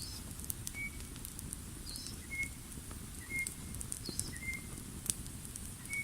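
Campfire crackling with scattered sharp pops over a low rumble. Meanwhile a bird repeats short, high whistled notes about once a second, with a higher chirp every couple of seconds.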